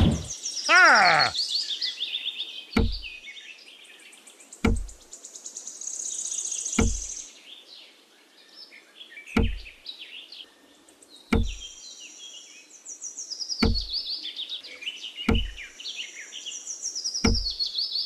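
Birds chirping and trilling, with a dull low knock about every two seconds. Just under a second in, a short warbling tone glides up and down, the loudest sound here.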